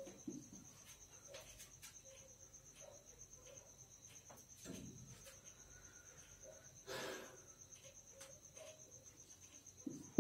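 A marker pen writing on a whiteboard: faint squeaks and taps of the strokes, over a steady high-pitched trill, with a short rustle about seven seconds in.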